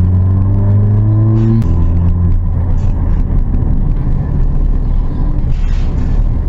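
Car engine with an automatic transmission, rising in pitch as it accelerates, then dropping suddenly about one and a half seconds in as the gearbox shifts up, and running steadily after that.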